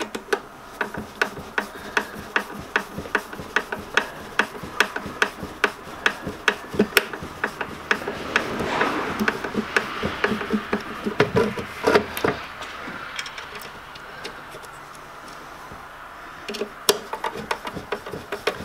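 A hand screwdriver turning tight mounting screws into a lathe's sheet-metal housing: a quick run of sharp clicks, about three a second, with a stretch of scraping about eight seconds in. The screws are cutting fresh threads into the mountings.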